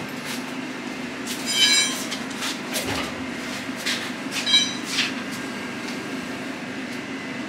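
Two short high-pitched squeals, about three seconds apart, among light knocks and clatter as work materials are handled and loaded, over a steady low hum.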